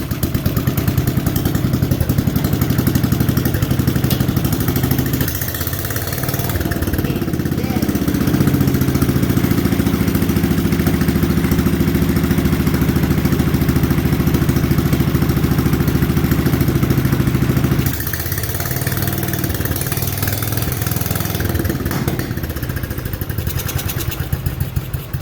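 John Deere 210 garden tractor's single-cylinder engine running. It speeds up about seven seconds in, holds a steady higher speed, and drops back to a lower speed about eighteen seconds in.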